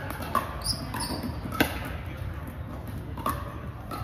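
Pickleball paddles hitting a hollow plastic ball in a rally: several sharp pocks, the loudest about a second and a half in.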